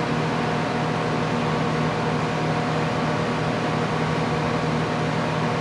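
Steady mechanical hum: a constant low tone with a hiss over it, unchanging throughout.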